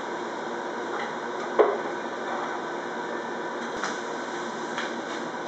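A single sharp clack of a hard object about a second and a half in, then a few lighter clicks later, over steady room noise.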